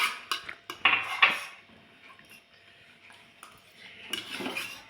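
A spoon clinking and scraping against a bowl during eating: several quick sharp strikes in the first second and a half, then a softer scraping sound near the end.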